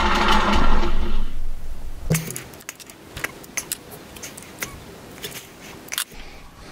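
A short rush of noise, then a string of light metallic clicks and taps as parts of a tool and cutter grinder are handled and set.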